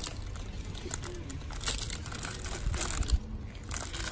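Clear plastic packaging of a phone case crinkling and rustling as it is handled, in irregular short crackles.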